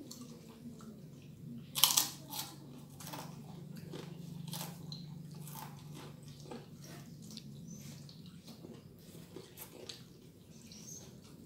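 Close-up chewing and biting of food eaten by hand, with crisp crunches throughout; two loud crunches come about two seconds in. A low steady hum runs underneath.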